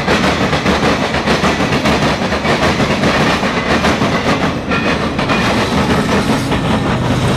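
Freight train cars rolling past close by, loud, with wheels clacking rapidly over the rail joints. A steady low hum comes in near the end.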